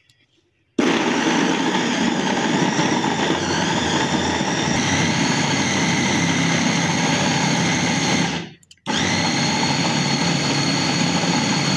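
Electric mini food chopper running with its motor cap held down by hand, the blades chopping radish, tomato, green chillies and coriander into chutney. The motor starts about a second in, stops for about half a second after roughly eight seconds, then starts again.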